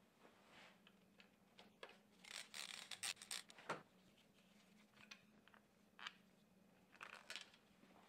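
Faint handling noises from an R9M diesel's timing chain being moved by a gloved hand: rustling and scraping with light metallic clicks. Most of the scraping comes between about two and four seconds in, followed by a few separate clicks.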